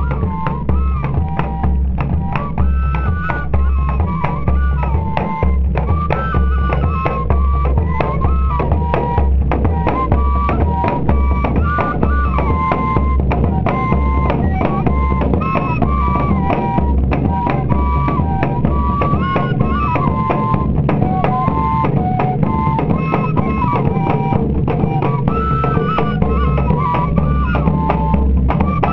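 Northeastern Brazilian fife band music: a pífano (cane fife) plays a stepping melody over a steady bass-drum beat and other percussion.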